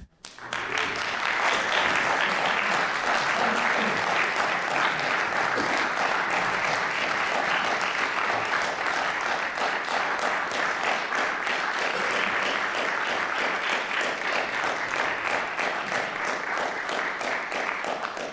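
Audience applauding, a dense steady clapping that starts about half a second in and thins out near the end.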